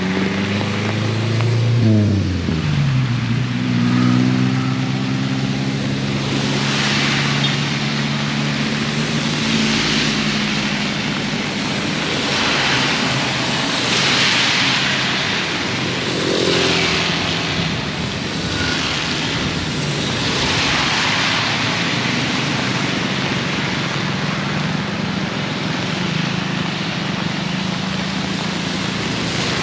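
A motor vehicle's engine running close by: its pitch drops about two seconds in, then it runs steadily. Underneath is the constant hiss of heavy rain, with several swells of louder hiss that rise and fade.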